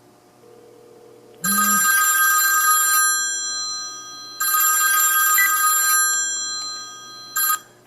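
Old iPhone ringing with an electronic ringtone on an incoming Fongo Wi-Fi call: two rings of about a second and a half each, then a third that cuts off almost at once near the end.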